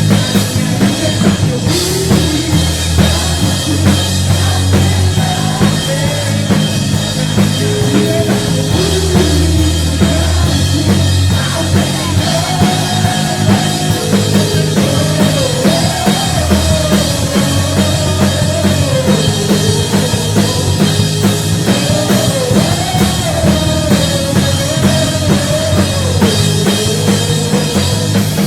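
Drum kit played along to a rock-style backing track, with bass drum and snare over a bass line and a gliding melody line.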